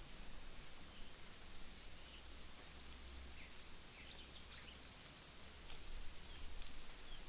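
Faint outdoor ambience: a steady hiss with scattered short, high chirps of small birds, thickest around the middle, and a few light ticks.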